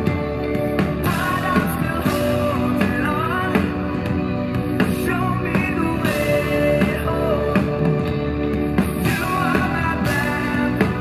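Live rock band playing: electric guitar, bass guitar and drums, with a male singer's vocals over a steady beat.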